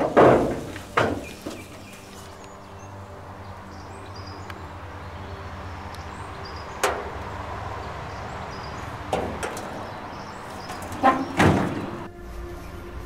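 Rusted, burnt-out car body being handled: a few sharp metal clunks and scrapes from the bonnet and panels, a cluster in the first second and a half, single knocks around seven and nine seconds in, and a double clank near the end.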